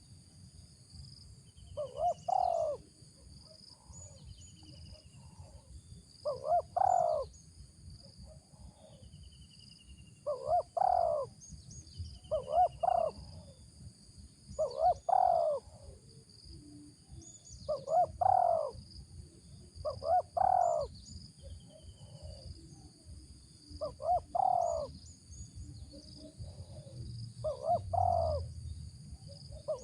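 Spotted dove (tekukur) cooing: a short coo phrase repeated about ten times, one every two to four seconds.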